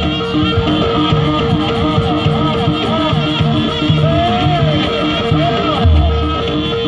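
Javanese jaranan troupe music: a reed melody sliding up and down in pitch over repeating pitched notes and drum beats, with a deep low stroke about six seconds in.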